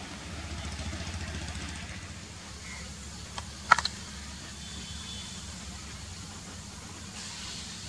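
Distant diesel locomotive engine running, a steady low hum, with a single sharp click about halfway through.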